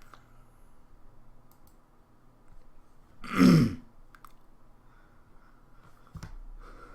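A person clearing their throat once, a short loud cough-like burst about three and a half seconds in, with a few faint clicks around it.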